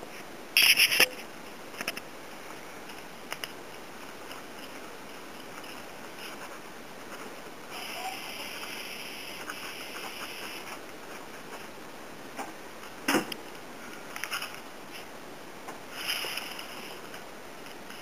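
Quiet room tone with a few sharp clicks and taps, the loudest about a second in and again near thirteen seconds in, and a few seconds of hissy rustling in the middle.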